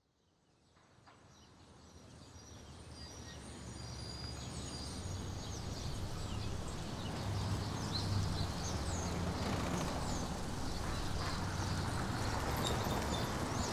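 Outdoor ambience fading in from silence over the first few seconds: a steady low rumble with birds chirping.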